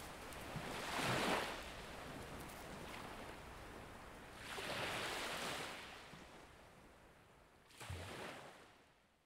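Surf washing in: three swells of rushing noise a few seconds apart, the last one fading out near the end.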